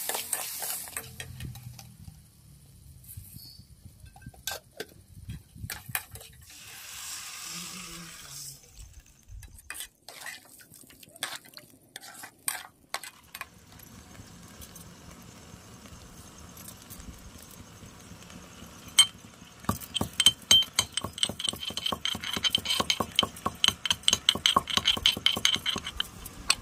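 Metal pestle pounding seeds in a small aluminium mortar: a fast run of sharp strikes with a metallic ring, starting about two-thirds of the way in and getting louder toward the end. Before that, scattered clicks and scrapes of a metal ladle against an aluminium pan.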